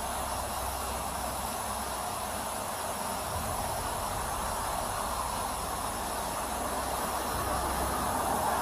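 Steady roadside background noise at night: an even hum and hiss with no distinct events.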